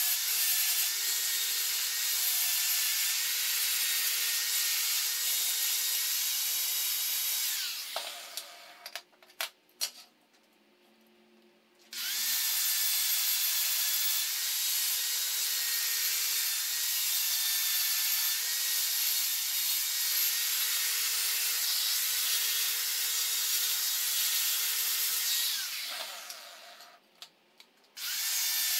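Electric angle grinder grinding steel bracket plates, a steady high whine with the rasp of the disc on metal. It runs for about eight seconds and spins down, then comes a few seconds of quiet with a few light clicks. It runs again for about thirteen seconds, spins down, and starts once more just before the end.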